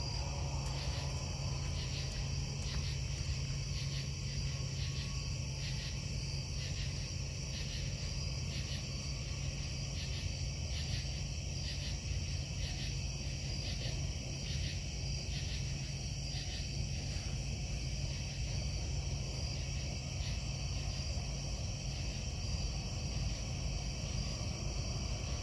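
A steady low industrial hum carries across the night from a foundry plant. Over it, insects trill steadily, and one caller chirps in even pulses a little over once a second until about two-thirds of the way through.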